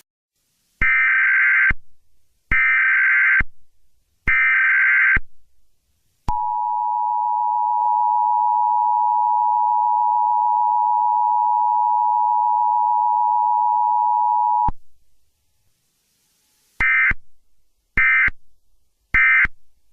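Emergency Alert System tones. Three harsh digital data bursts of the SAME header, each just under a second, are followed by the steady two-tone attention signal, which holds for about eight seconds and cuts off sharply. Near the end come three short end-of-message data bursts.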